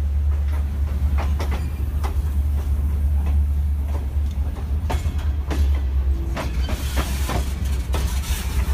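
Freight train's open-top cars rolling past close by: a steady low rumble from the wheels on the rails, with scattered clanks and clicks, and more hiss in the last couple of seconds.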